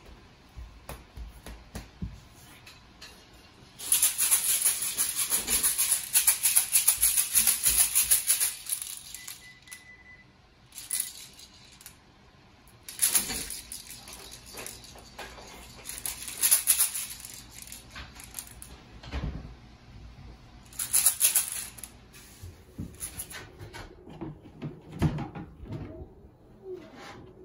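Clear plastic toy rattle balls shaken in bursts, the beads inside rattling rapidly, with one long run of about four seconds and several shorter shakes after it.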